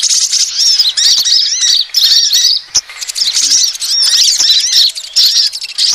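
Sunbird lure track: fast runs of high-pitched twittering chirps, each note a quick arching squeak, packed closely and repeating, with a brief break a little before the three-second mark.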